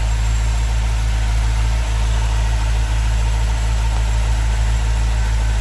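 Pontiac GTO's V8 engine idling steadily just after an oil change, heard from beneath the car. It runs evenly, with no ticking or knocking.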